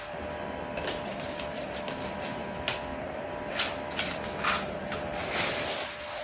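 Pages of a paper instruction manual rustling as they are handled, in about eight short rustles, over a steady hum.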